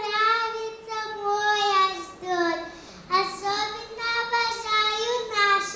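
A young girl singing unaccompanied into a stage microphone: two long phrases of held notes, with a short break about halfway.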